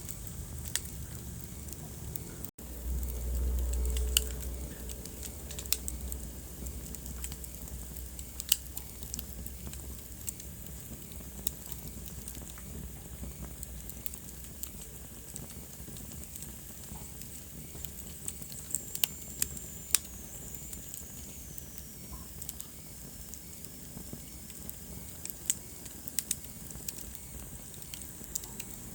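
Wood fire burning in a fireplace: a steady hiss with scattered sharp crackles and pops. A low rumble rises for a couple of seconds near the start, and a faint high whistle falls slowly in pitch a little past the middle.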